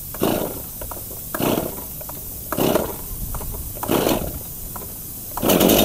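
STIHL MS251 chainsaw's recoil starter pulled four times, about a second and a quarter apart. Near the end the two-stroke engine catches on the half-choke starting setting and runs steadily at a fast speed.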